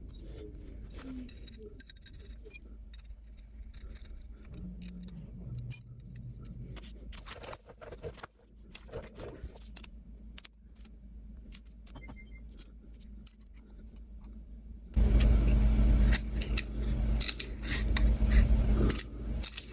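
Small metal parts of an aftermarket gear shift lever kit clinking and scraping as they are handled and fitted together, faint light clicks at first. About fifteen seconds in a much louder noise starts suddenly: a low rumble with dense clattering and rustling.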